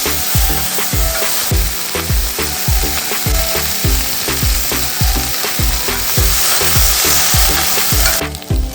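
Food sizzling in hot oil in a pan, a steady hiss that cuts off suddenly near the end. Background music with a steady bass beat plays throughout.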